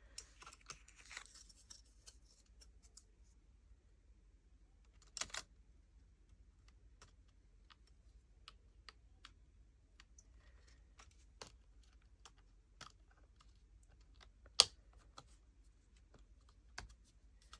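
Faint, scattered light clicks and taps of the SSD shield being handled and fitted over an M.2 SSD inside an opened laptop, with one sharp click, the loudest, late on as the shield snaps into place.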